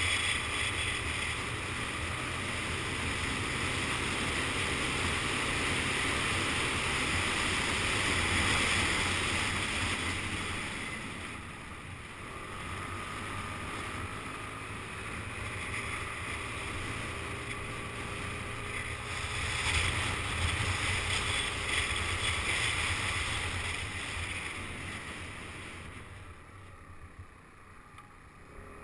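Wind rushing over the camera's microphone on a moving motorcycle, with engine and road noise underneath. The rush eases for a while in the middle and then dies down near the end as the bike slows.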